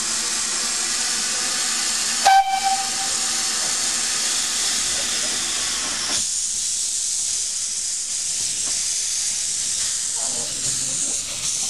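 Narrow-gauge steam locomotive hissing steadily with escaping steam, with one short toot on its whistle about two seconds in.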